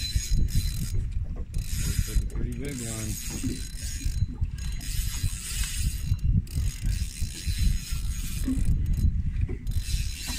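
Spinning reel being cranked as a hooked fish is reeled in against a bent rod, a steady mechanical whirring and clicking, over an irregular low rumble.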